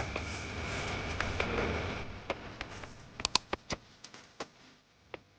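A steady faint background hiss with a thin high tone, giving way about two seconds in to a quick scatter of light sharp clicks and taps.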